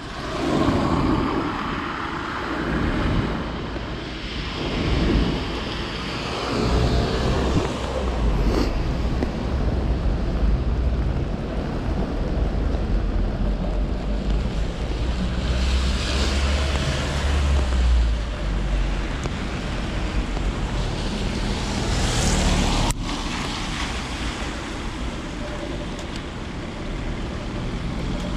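Wet-street ambience: wind rumbling on the microphone over the steady hiss of traffic on a rain-soaked road, with cars swishing past on wet tarmac twice, past the middle and about three-quarters through.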